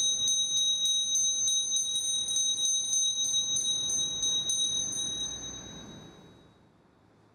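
Altar bell rung repeatedly, about three or four strikes a second, with a high, bright ring that fades out about six seconds in. It is the bell rung at the elevation of the chalice during the consecration at Mass.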